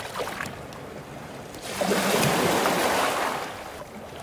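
Sea waves: a low wash of surf, with one wave swelling up about two seconds in and washing back out about a second and a half later.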